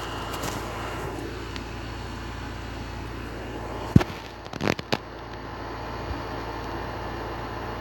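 Steady low hum and hiss of background noise. About four seconds in there is one sharp click, followed within the next second by a few short knocks or rustles.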